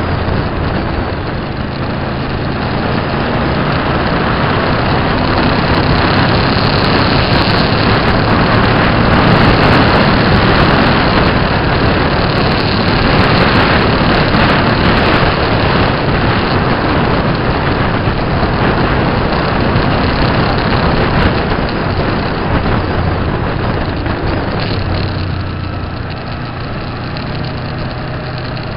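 Motorcycle engine running at road speed under heavy wind noise on the microphone. The wind grows louder over the first several seconds and eases a little near the end.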